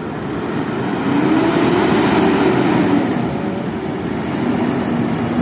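A large bus driving past close by, its engine and tyres loudest from about one to three seconds in, the engine note rising and then falling; a steadier engine hum follows near the end.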